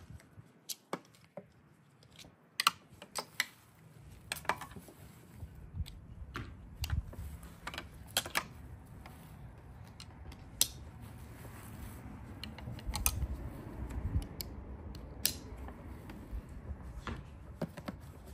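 Buckles on a dog harness clicking and its straps rustling as the harness is fastened and adjusted: a string of sharp clicks throughout, with a low rumble underneath from about four seconds in.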